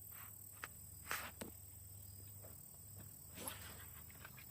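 Quiet riverbank ambience, a steady faint background with a few short soft clicks and rustles scattered through it.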